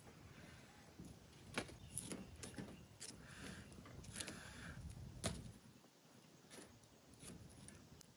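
Soft, scattered clicks and light taps as slices of winter melon are turned on a wire grill rack and set down on a bamboo tray, over a low, steady background.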